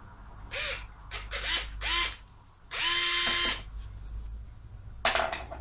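Fanttik NEX L1 Pro cordless electric screwdriver's motor run in three short bursts, each winding up and dropping away, then held for under a second at a steady whine. Near the end comes a short clatter.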